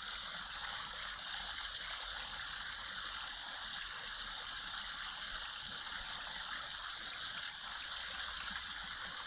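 Running water of a woodland stream: a steady, even rush with no change in strength.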